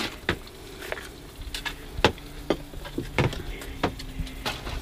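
Light clicks and knocks of a knife working in a plastic butter tub and against a plate while bread is buttered, a few scattered taps, over a faint steady low hum.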